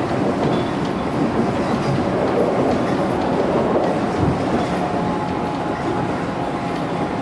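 Running sound of a JR 211 series electric train, heard inside the carriage: a steady rumble of wheels on rail at speed. There is a low thud about four seconds in, and a faint steady whine comes in shortly after.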